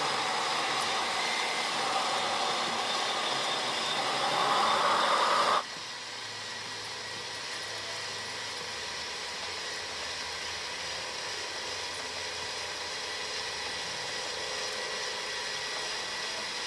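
Radio-controlled scale model of a Caterpillar D25D articulated dump truck driving, its drive motor and gearing whirring steadily and swelling louder about four seconds in. About five and a half seconds in the sound cuts off suddenly to a quieter steady whirring from the model excavator and dump trucks working.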